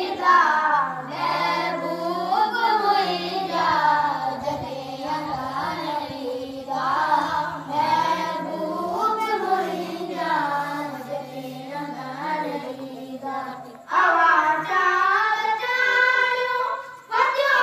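A voice chanting a melodic devotional recitation, with long held, gliding notes; from about fourteen seconds in it becomes louder and higher.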